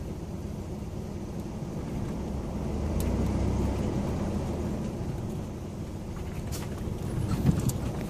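Chevrolet Blazer driving slowly along a rough dirt track: a steady low engine and tyre rumble that swells about three seconds in, with a few sharp knocks near the end.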